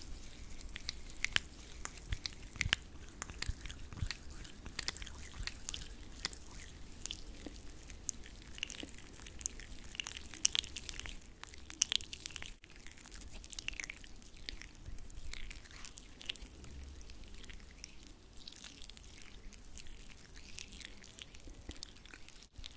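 Close-miked wet, sticky hand sounds: palms slick with a cream or gel being rubbed and pressed together, giving a dense, irregular run of small squelches and crackles.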